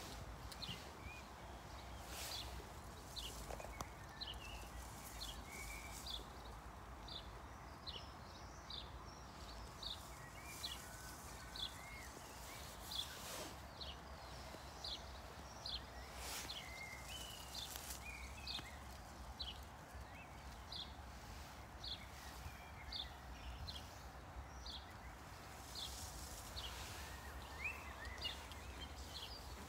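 A bird calling over and over, one short high note about once a second, over a steady low outdoor rumble, with a few brief rustles.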